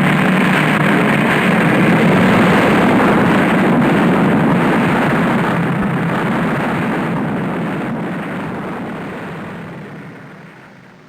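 A steady, loud rumbling noise with a low hum, fading out gradually over the last few seconds.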